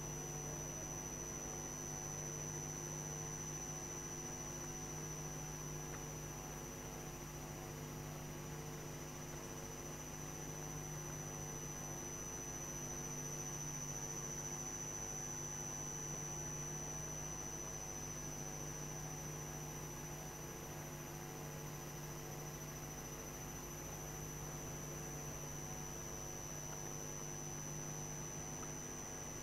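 Steady electrical mains hum with a thin high-pitched whine above it.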